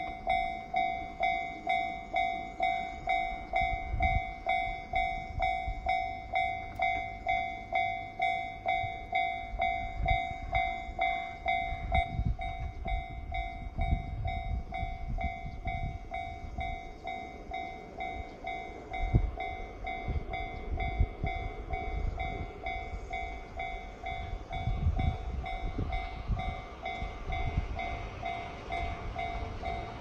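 Japanese railway level-crossing alarm, the JR standard electronic crossing bell, ringing in a steady rhythm of about two strikes a second to warn of an approaching train. From about twelve seconds in, the strikes stand out less against low rumbling noise.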